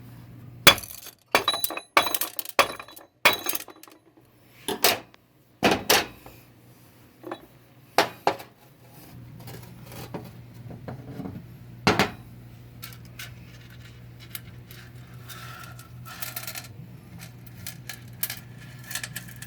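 Metal automatic-transmission parts clinking and clattering against each other and the bench as they are handled during a 4L60-E teardown. There are a dozen or so sharp ringing clinks in the first half, then fewer and fainter taps, over a steady low hum.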